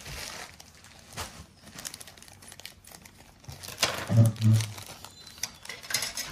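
Plastic packaging crinkling and rustling as it is opened by hand. A brief low voice murmur comes about four seconds in.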